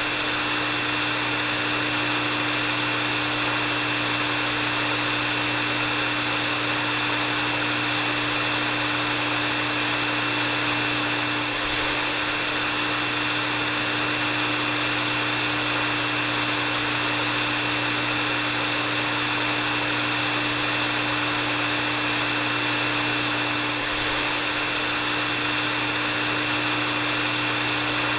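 Hair dryer running steadily on one setting: an even rush of blown air with a steady high whine and a lower hum held at one pitch, dipping very slightly about every twelve seconds.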